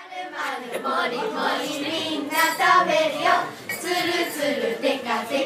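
A child's voice singing, the pitch moving up and down throughout.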